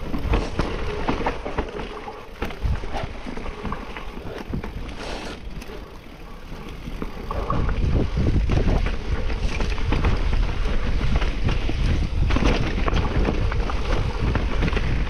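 Mountain bike riding down a rough trail: tyres on dirt and rock and the bike rattling over the bumps, with wind buffeting the microphone. The wind rumble grows louder about halfway through.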